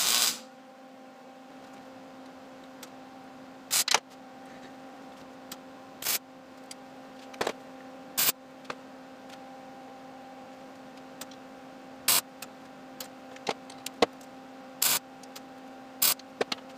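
Arc welder laying short tack welds on steel flat bar: a string of brief crackling bursts, one to a few seconds apart, over a steady electrical hum.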